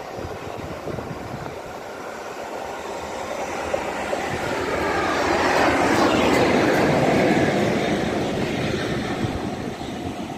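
LNER A4 class three-cylinder Pacific steam locomotive 60007 Sir Nigel Gresley and its coaches passing through a station. The sound grows louder to a peak about six seconds in, then fades as the train goes by.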